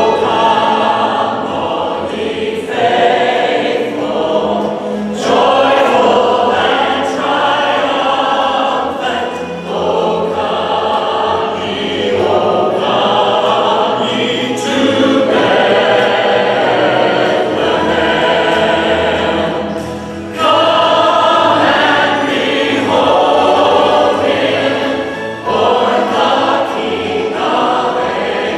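A women's vocal group and a standing congregation singing a Christmas carol together in long phrases, with brief breaks between them.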